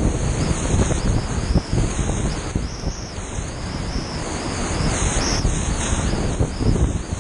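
Whitewater rapids rushing and breaking around a kayak, with paddle splashes and water and wind buffeting the camera's microphone in a steady noisy roar.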